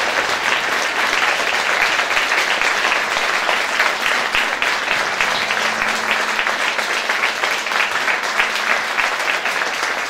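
Audience applauding: a dense, even clatter of many hands clapping that holds steady throughout.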